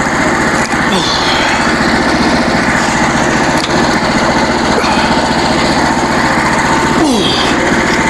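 Small gasoline engine of a portable sawmill running steadily with a fast, even beat, with a few short falling squeaks about a second in and near the end.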